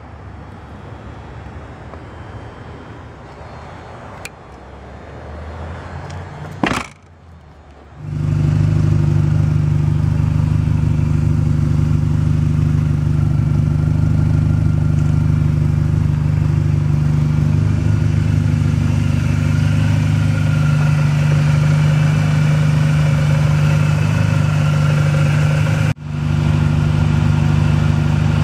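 A rear hatch slams shut once, then the supercharged four-cylinder engine of a 2006 Mini Cooper S idles loudly and steadily, with a short break near the end.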